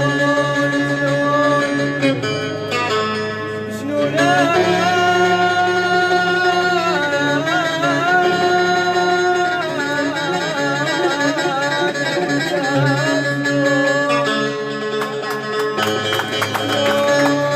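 Music: singing over plucked-string accompaniment, with low notes held throughout and a wavering melody line through the middle.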